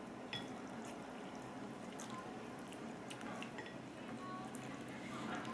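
Liquid sounds from a bowl of ramyeon: soft drips and small splashes of broth with scattered light clicks.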